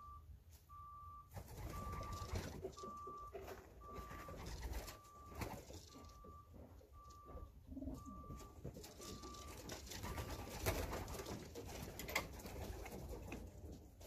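Young racing pigeons cooing softly in the loft. A steady short beep at one pitch repeats about once a second under the cooing and fades out near the end.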